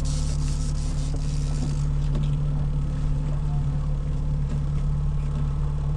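Boat motor running steadily at low trolling speed, a constant low drone, with a hiss over it during the first couple of seconds.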